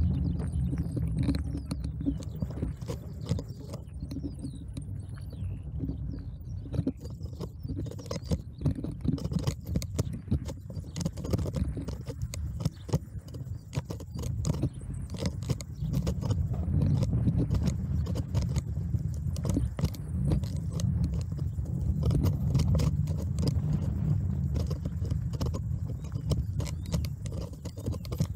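Bicycle riding over a rough path: a steady low rumble from the tyres and wind on the microphone, with frequent rattling and clicking from the bike.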